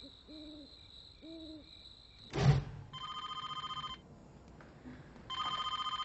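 A telephone ringing twice, each ring about a second long. Before it come two low hoots over a faint steady high tone, then a loud thump about two and a half seconds in.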